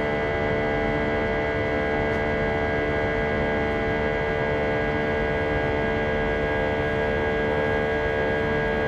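Airbus A320 turbofan engine at climb power, heard inside the cabin beside the wing: a steady drone with several fixed whining tones over a low rumble.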